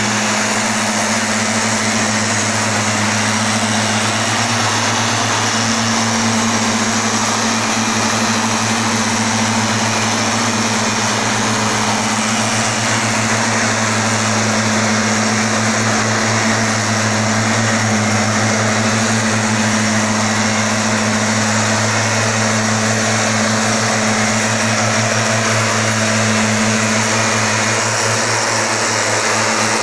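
Stihl backpack mist blower's two-stroke engine running steadily, its fan driving a continuous hiss of air and spray out of the nozzle.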